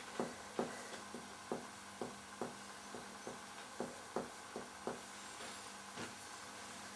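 Finger-on-finger percussion of the chest wall: about a dozen soft taps, several in pairs, as the examiner percusses toward the heart's apex to find the left border of relative cardiac dullness. The taps stop about six seconds in.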